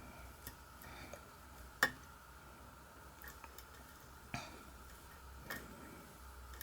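Faint metallic clicks and ticks of a lock pick and tension wrench working the pins of a pin-tumbler lock: a few scattered, isolated clicks, the sharpest about two seconds in and two more in the second half.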